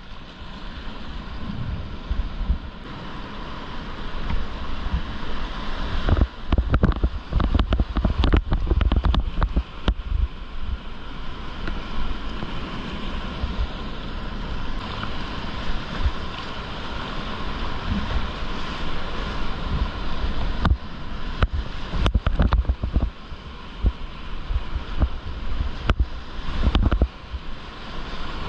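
Whitewater rapids rushing steadily around a kayak, with bursts of splashing, sharp knocks and low rumbling buffeting on the action camera's microphone. The rumbling and knocks are heaviest in a run several seconds in and come back in shorter bouts near the end.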